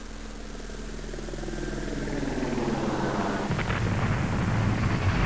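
Cinematic intro music: a low held chord swells steadily louder, and about three and a half seconds in gives way to a deep, rumbling, boom-like swell.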